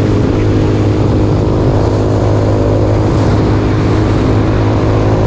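Jasscol 200cc trike's engine running steadily at a constant cruising speed, a low even engine hum under a steady rush of wind and road noise.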